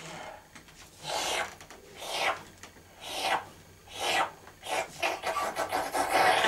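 A series of rasping scrapes, about one a second, coming closer together near the end.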